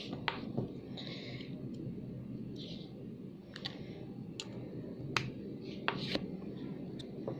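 Beyblade parts (metal fusion wheel, clear wheel, plastic spin track and tip) clicking and tapping together as the top is assembled by hand: a dozen or so sharp, irregular clicks with a couple of brief scrapes, over a steady low hum.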